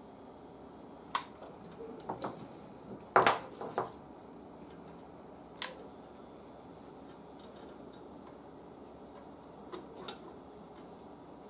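Small metal hand tools clicking and clinking against metal parts on a workbench: a sharp click about a second in, a cluster of louder clinks between two and four seconds in, another click in the middle, and two faint clicks near the end.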